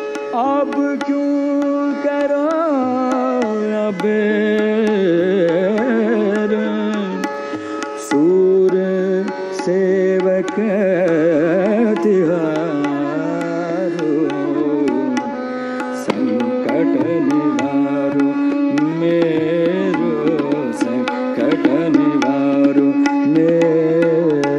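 Hindustani classical bhajan in Raga Bhairavi: an ornamented melodic line with fast, wavering runs over tabla keeping keherwa taal, with steady held notes beneath.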